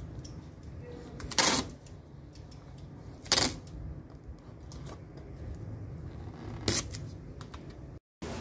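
Masking tape being pulled off the roll and pressed down along a car's tail light during pre-paint masking: three short ripping peels, with small handling clicks between them.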